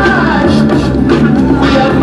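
Loud music.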